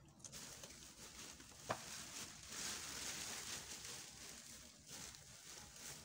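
Faint rustling of a plastic bag and dry coconut fibre as handfuls of fibre are pulled from the bag, with a single short click about two seconds in.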